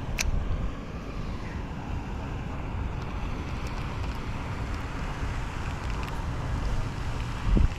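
Wind buffeting the microphone outdoors, a steady uneven low rumble, with one sharp click about a quarter second in.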